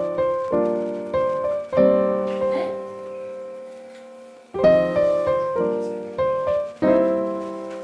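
Background piano music: sustained chords that fade away, with a new phrase struck about halfway through.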